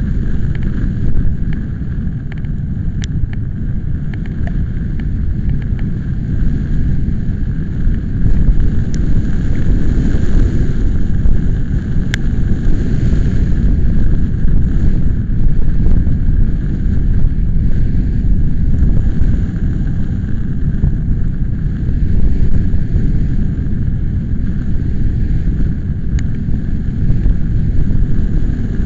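Strong wind buffeting the microphone as a loud, steady low rumble, with a few sharp ticks scattered through it.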